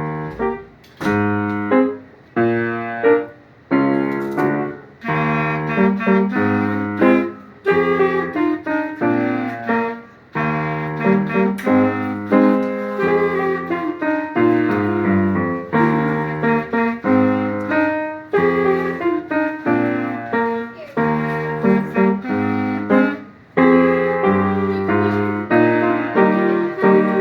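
Solo piano playing a melody over chords, each note struck and then fading, at a steady moderate pace.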